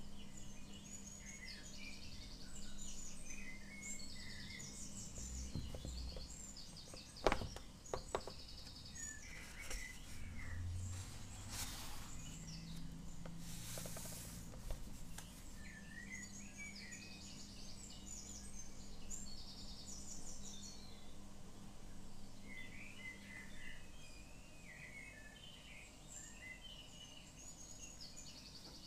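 Small birds chirping and twittering in repeated short phrases, over a steady low hum. About seven seconds in there is a sharp knock, and a few seconds later a short rustle as the sketchbook page is turned.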